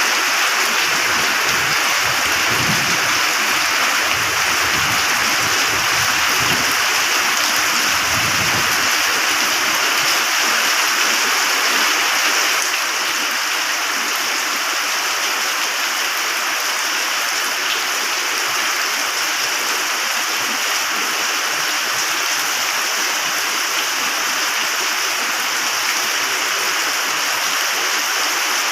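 Steady heavy rain, a dense even hiss of falling water, with distant thunder rumbling low during the first nine seconds or so. The rain eases slightly about thirteen seconds in.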